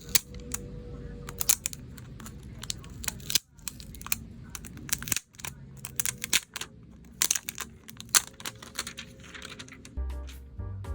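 Packaging being handled while a new phone is unboxed: irregular crinkling and tearing with many sharp clicks and taps.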